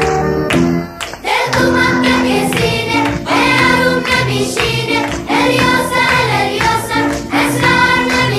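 Background music: a plucked-string passage that gives way about a second in to a song sung by several voices.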